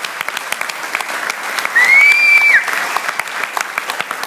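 Audience applauding steadily, with one loud, high whistle about two seconds in that rises slightly, holds for under a second, then drops away.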